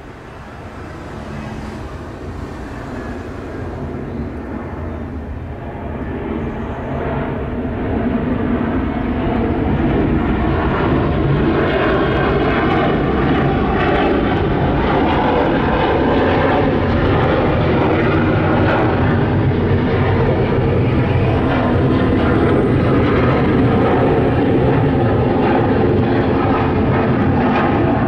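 Air Canada Airbus A330 climbing out after take-off, its twin jet engines at climb power making a steady rumble. It grows louder over the first ten seconds or so as the jet comes overhead, then holds loud.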